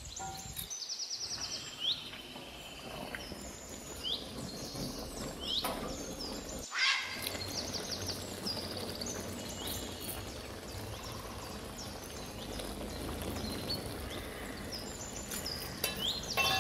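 Small birds chirping over and over in short, quick calls, over a steady background hiss.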